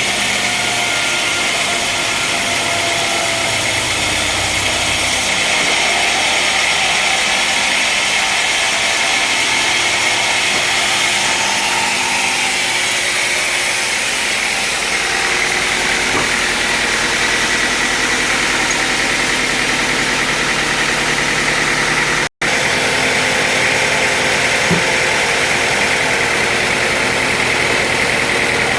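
Sawmill machinery running steadily, a continuous mechanical hum with a hissing edge; it cuts out for an instant about two-thirds of the way through.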